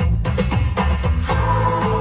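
Background music with a strong bass beat and sustained melodic notes.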